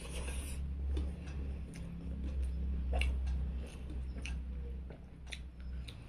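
Close-up eating sounds: chewing and soft mouth clicks while eating rice and boiled radish by hand, with scattered light ticks of fingers on a steel plate. A steady low rumble lies underneath and is the loudest part.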